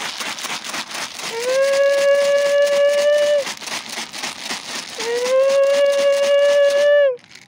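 Dry cat food shaken hard in a plastic container, a fast continuous rattle used to call cats, with three long, level high-pitched calls over it, each about two seconds. The shaking stops near the end.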